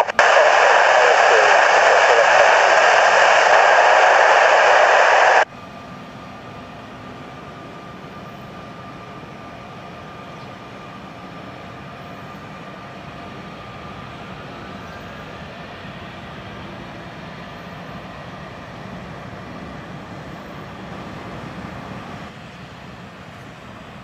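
Loud radio-scanner hiss for about five seconds, cutting off suddenly. Then a much quieter, steady jet whine and rumble from the Antonov An-124's four turbofan engines running on the runway.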